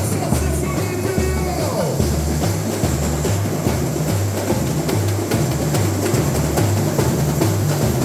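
Samba bateria playing a steady groove: surdo bass drums alternate between two low pitches about twice a second under dense snare and other percussion.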